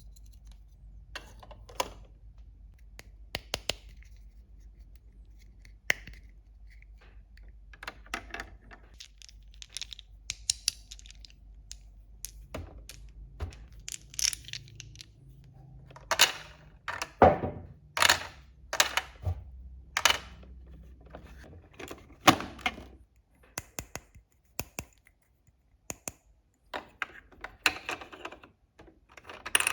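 Small plastic toy pieces and packaging being handled: scattered clicks, taps and short rustles, with a run of louder scraping strokes about once a second midway.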